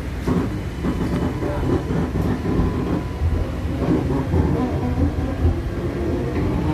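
MTA light rail tram #5033 running along the track, heard from inside the car: a steady low rumble with scattered rail clicks and a faint steady whine.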